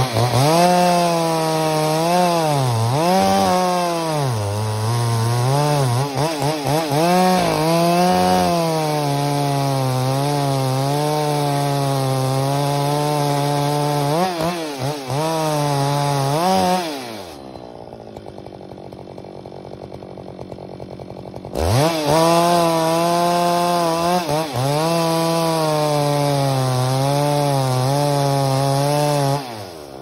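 Two-stroke chainsaw cutting into larch wood at full throttle, its pitch dipping and recovering as the chain bites. After about 17 seconds it drops to idle for a few seconds, revs up and cuts again, then falls back to idle near the end.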